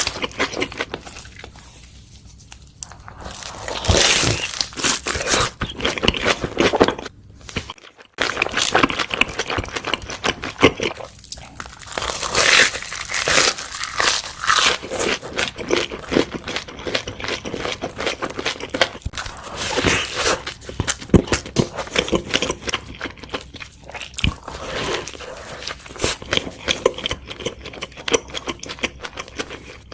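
Close-miked eating of a crispy chicken burger: repeated crunchy bites and chewing. There is a brief drop-out about eight seconds in.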